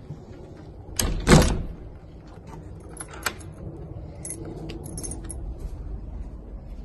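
A timber door knocked shut with two loud knocks about a second in. Then a key works in the door's lock with a sharp click, and the bunch of keys hanging from it jingles.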